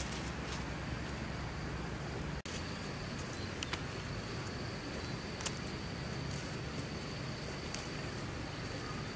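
Outdoor ambience with a steady high insect note that starts about two and a half seconds in and stops near the end, over a low rustling background with a few faint clicks.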